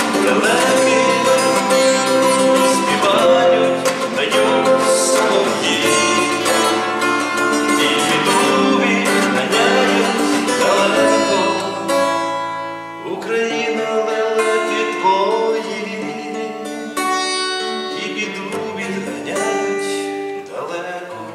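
Song music: a plucked lute-type string instrument played with a fuller accompaniment and some singing, growing softer about halfway through.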